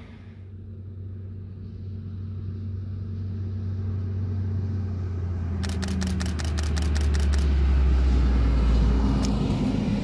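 A diesel multiple unit approaching and passing: a low engine drone swells and slides lower in pitch as it comes by. About six seconds in there is a quick run of sharp, regular clicks, about five a second.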